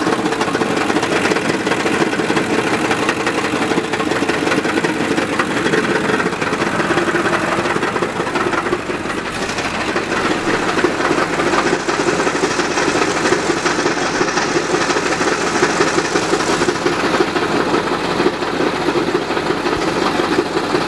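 2003 Ford F-250's 7.3 L Power Stroke V8 turbo diesel idling with a steady, abnormally loud diesel noise. This is the bad noise at idle that appeared after an engine-out oil pan job; the cause has not been found.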